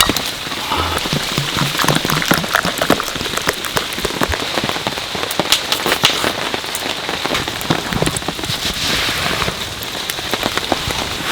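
Steady rain falling, with many close drops striking in quick, uneven ticks over an even hiss.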